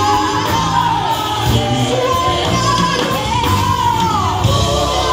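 A vocal group singing a song live, the voices sliding down in long pitch swoops over a steady low accompaniment.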